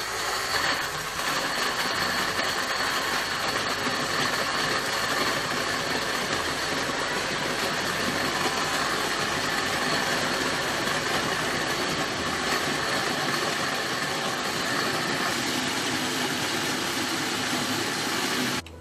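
Westpoint countertop blender's motor running steadily, grinding chopped raw tomatoes into a smooth puree; it cuts off abruptly just before the end.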